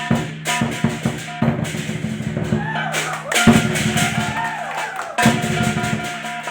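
Lion dance percussion: a big drum beaten in a rhythm, with clashing cymbals and a ringing gong.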